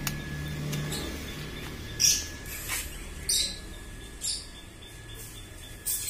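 Small birds chirping now and then: about five short, high chirps over a faint steady high whine and a low hum.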